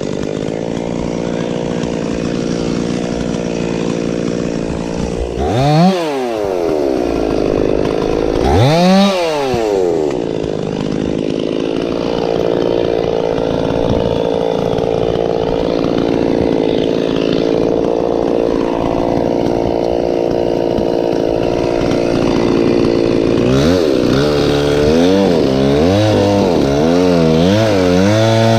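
Two-stroke chainsaw running at full throttle while cutting through a pine trunk, its pitch held steady under load. It revs up and back down twice, about six and nine seconds in. Near the end the revs swing up and down about once a second.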